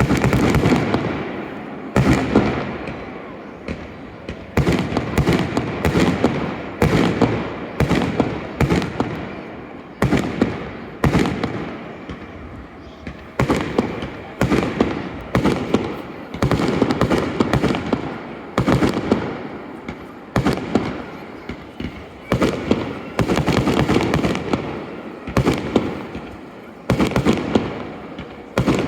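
Aerial fireworks bursting overhead in a continuous barrage: many sharp bangs in irregular clusters, each trailing off in a rumbling echo.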